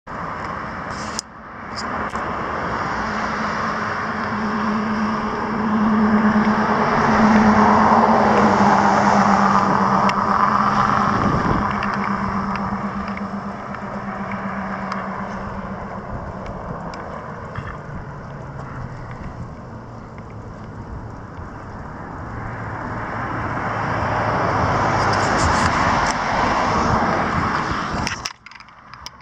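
Cars passing on a multi-lane road, the traffic noise swelling and fading as each goes by, loudest about a quarter of the way in and again near the end. Just before the end a few knocks and rustles from the camera being handled.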